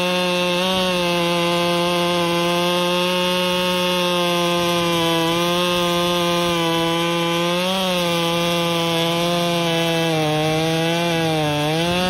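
Stroked, ported Husqvarna 395XP two-stroke chainsaw running at full throttle in a cut through a large ash log, with a 42-inch bar and square-ground skip chain. The engine note holds steady, then sags in pitch a little over ten seconds in as the cut loads it, and picks back up near the end.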